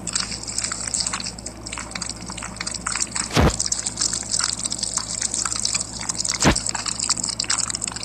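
Slime being squished close to the microphone: a dense run of wet crackles and clicks, with two louder pops about three and a half and six and a half seconds in.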